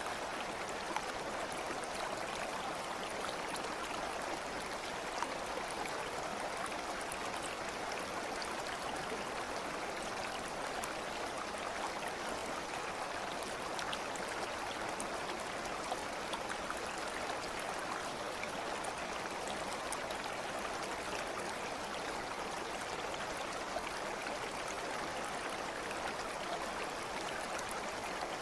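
Steady running water of a stream, an even babbling flow with small scattered splashes.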